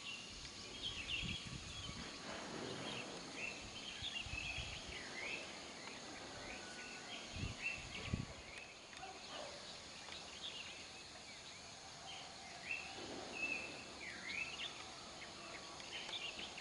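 Birds chirping and calling: many short, repeated high chirps. A couple of low thumps come just past the middle.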